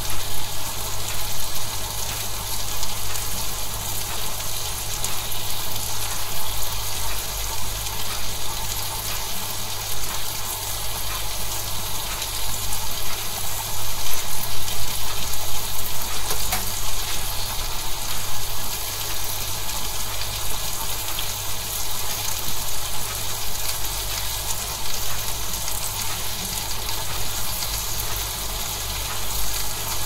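Steak sizzling in a hot pan: a steady, dense sizzle with fine crackling, over a low steady hum.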